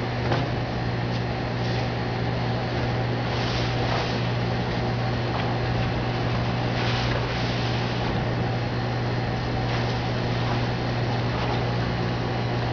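Steady low machinery hum throughout, with a few faint brief scrapes and knocks as flat refrigerant plates are slid and set into the shipper's insulated top cavity.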